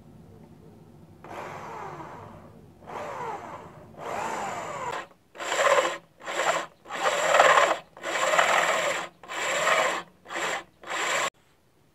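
Electric drill boring through a steel circular saw blade, heard as about ten short bursts of cutting that start and stop sharply. The first few have a whine falling in pitch. The louder later ones have a steady high whine over the grinding of the bit in the steel.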